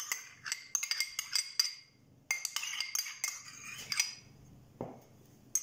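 A metal spoon clinking and scraping against a small cup while scooping out yogurt: a quick run of ringing clinks, a short pause, then another run, with a couple of lone clicks near the end.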